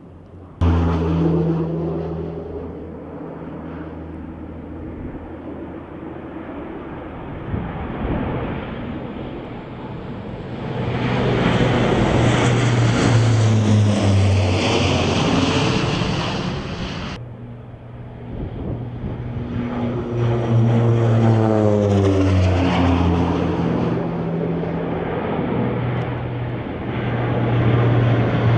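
Propeller-driven firefighting air tanker flying low overhead, its engine drone falling in pitch as it passes. The sound cuts in suddenly just after the start and breaks off about two thirds through before another pass.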